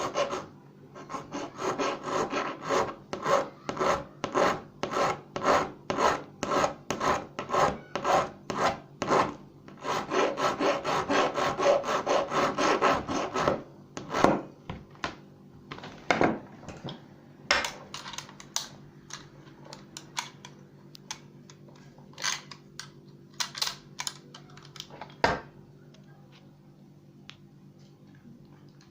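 Rhythmic rasping strokes worked back and forth, about two a second, then a few seconds of continuous rasping that stops about 13 seconds in. After that come scattered clicks and knocks over a faint steady hum.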